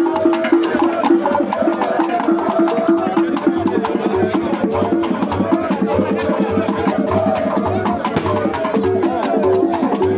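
Traditional Igbo masquerade music: continuous percussion with fast, sharp wood-block-like clicks, regular low drum beats and a repeating figure of short pitched notes, with crowd voices mixed in.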